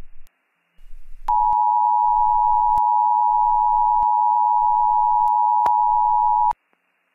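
Emergency Alert System attention signal: a steady alarm of two close pitches sounding together, starting about a second in and cutting off abruptly about five seconds later.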